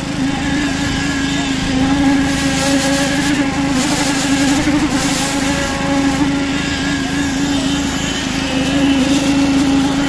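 Small petrol engine driving a concrete poker vibrator, running steadily at a constant speed with a steady engine hum while the vibrator needle is worked into wet concrete.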